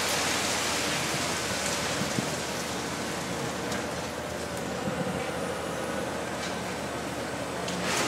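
Ferma high-reach demolition excavator running steadily while its jaws chew into a concrete wall, with a few scattered cracks and knocks of breaking concrete over a constant hiss of dust-suppression water spray.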